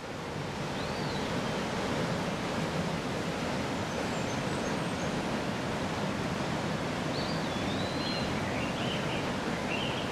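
A steady rushing noise fading in over the first second. Short, wavering high chirps come once about a second in and then in a run from about seven seconds on.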